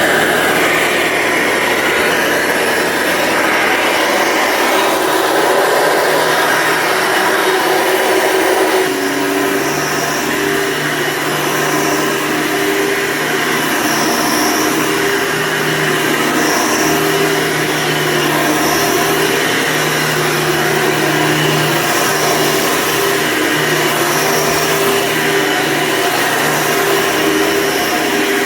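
Hoover Runabout vacuum cleaner running steadily with a rushing-air sound; about nine seconds in its sound shifts and a steady low hum joins it.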